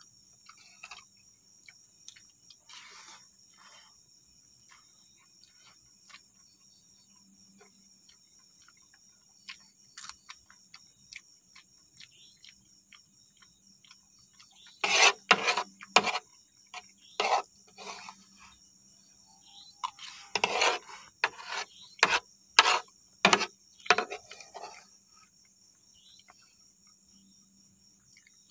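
Insects chirring steadily in the background. In the second half, sharp clicks and scrapes of a metal fork on a wooden board and eating sounds come in a quick scattered run, louder than the insects.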